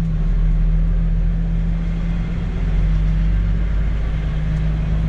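MAN semi-truck's diesel engine running with a steady low hum at low revs as the truck rolls slowly, heard from inside the cab.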